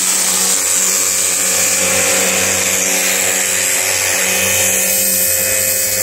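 Ryobi electric pressure washer running, its motor giving a steady whine while the wand sprays a jet of water with a strong, steady hiss.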